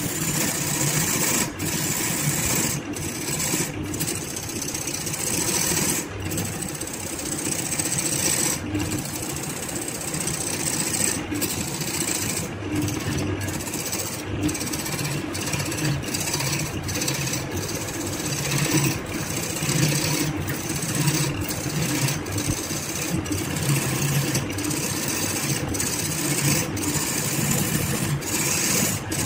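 A wood lathe spinning a large wood and resin blank while a hand-held turning tool cuts its surface, giving a steady scraping hiss over the lathe's motor hum.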